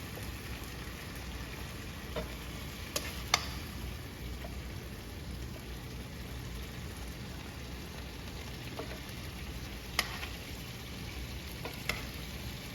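Chicken in a spicy barbecue marinade sizzling steadily in a frying pan as it cooks down, with a few sharp clicks spread through it.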